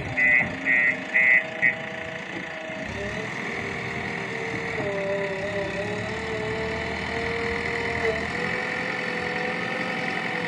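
Diesel engine of earth-moving equipment running steadily, its pitch shifting up and down a little. A rapid string of loud electronic beeps, about three a second, stops about a second and a half in.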